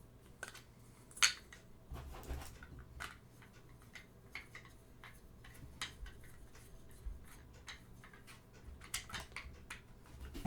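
Scattered small clicks and taps of plastic mini tripod parts being handled and unpacked, with a sharper knock about a second in and a few more clicks near the end.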